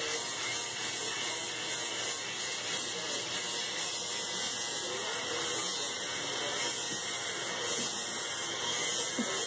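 Electric shaver running with a steady, unbroken buzz.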